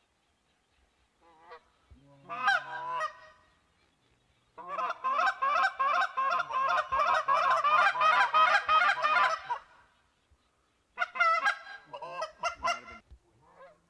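Geese honking in three bouts: a short burst about two seconds in, then a long chorus of many overlapping honks from about four and a half seconds to nearly ten, and another burst near the end.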